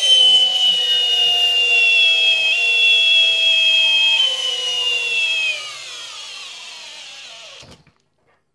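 Flex 24V cordless drill in low gear driving a large lag screw into wood without a pilot hole: a steady motor and gear whine that slows and drops in pitch over its last couple of seconds as the drill bogs down under the rising load, then stops near the end.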